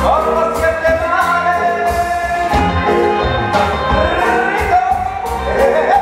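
Tropical dance band playing, with a sung vocal line over a steady percussion beat.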